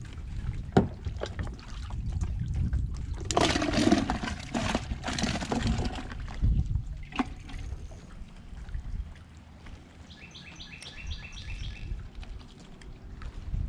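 Water splashing and sloshing around a floating fish basket as it is pulled alongside the kayak and handled, with a few sharp knocks. The splashing is loudest from about 3 to 6.5 seconds in.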